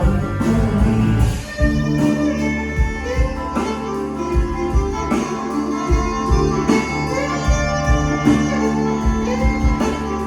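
Band playing an instrumental passage without vocals: a guitar melody over bass, with a steady drum beat thumping at regular intervals.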